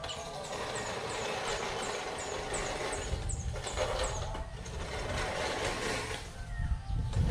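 Manual push reel mower cutting grass: the spinning reel blades whir and clatter against the cutter bar, swelling and dipping with each push.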